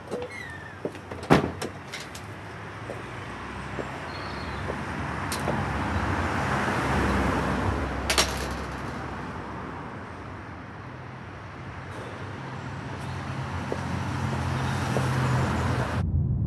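Sharp metallic clicks and knocks of a steel mesh gate being opened and shut, then street traffic: cars pass with a swell and fade of tyre and engine noise, twice. Near the end the sound cuts suddenly to the low steady rumble of a moving vehicle.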